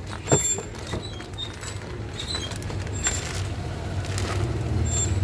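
Steady low rumble of a vehicle engine running nearby, growing a little louder near the end, with a few short crackles and clicks from a new air filter and its plastic wrapping being handled.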